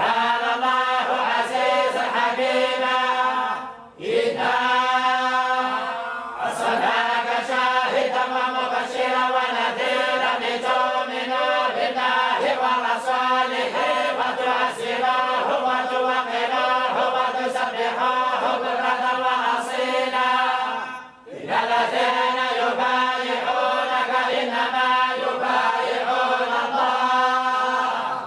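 A group of voices reciting the Quran in unison in the Moroccan collective style, one continuous chanted line with short breath pauses about four seconds in and again about twenty-one seconds in.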